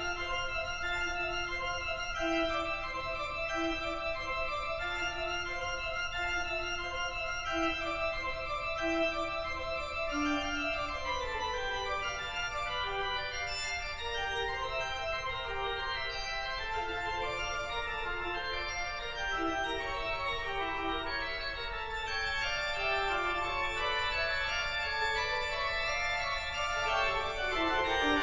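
Background music: a sustained organ or synthesizer track of held chords, with sweeping glides near the start and the end.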